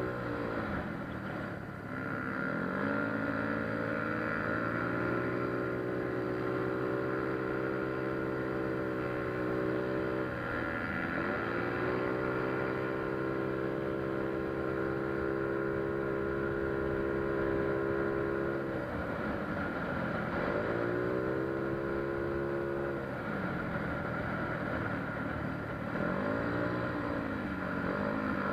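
Single-cylinder four-stroke engine of a Yamaha Mio Soul scooter, bored to 160cc with a 59 mm Chromebore cylinder, 24/28 big valves and a 28 mm carburettor. It runs at steady high revs for long stretches, and its pitch dips and climbs back up several times.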